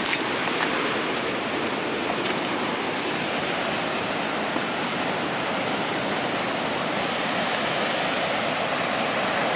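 Ocean surf breaking against rocky cliffs in a narrow sea gorge: a steady rushing wash of white water.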